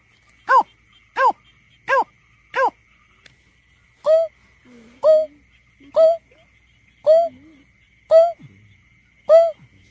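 Greater painted-snipe calling: a run of five short hooting notes about two-thirds of a second apart, then after a short pause a slower series of six lower notes, about one a second. A faint steady high tone runs underneath.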